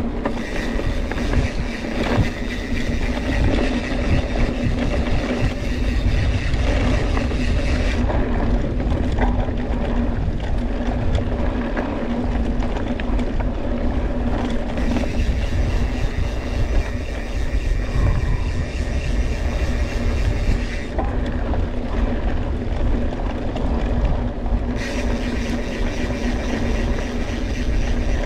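Mountain bike ride on dry dirt singletrack heard through an action camera: wind buffeting the microphone and tyres rolling over the trail make a steady rumble, with a constant buzz over it, and the sound changes abruptly a few times.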